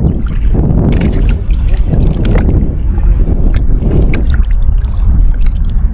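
Water sloshing and slapping against a kayak's hull, with wind rumbling on the microphone in uneven gusts and a few sharp clicks and knocks.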